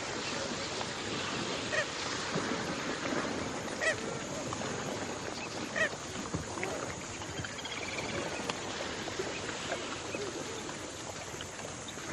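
Water birds giving a few short calls, about three spaced a couple of seconds apart, over a steady wash of water or surf.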